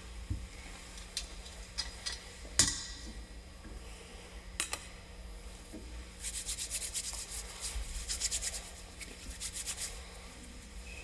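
Handling noise from objects at the altar: a few sharp knocks and clicks, the loudest about two and a half seconds in, then about four seconds of quick, repeated rubbing strokes.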